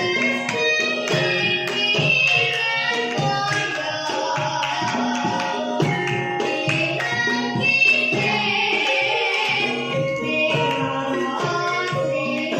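Traditional Javanese music played live: hand-drum strokes under pitched instruments, with a wavering melodic line that swells about two-thirds of the way in.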